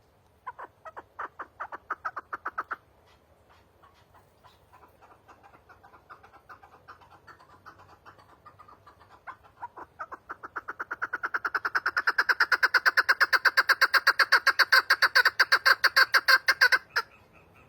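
Chukar partridge calling: a rapid series of clucking notes, a short loud burst at first, quieter clucks through the middle, then a long, fast, loud run of clucks that stops abruptly near the end.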